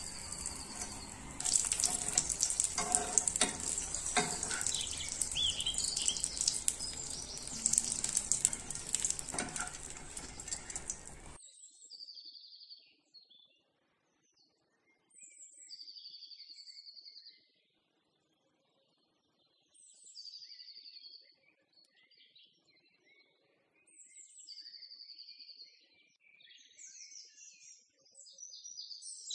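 Food sizzling and crackling in a frying pan. The sizzle cuts off abruptly about eleven seconds in. After it, faint short high chirps come every few seconds.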